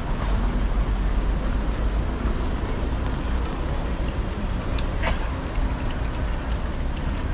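Steady city street ambience: a low traffic rumble with an even hiss over it, and a short sharp click about five seconds in.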